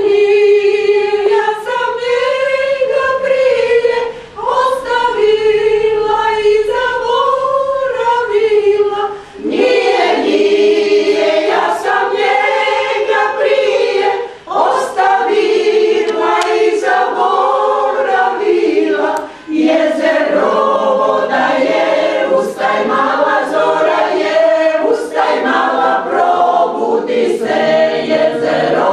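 Small women's choir singing a song unaccompanied, in phrases broken by short breath pauses about every five seconds.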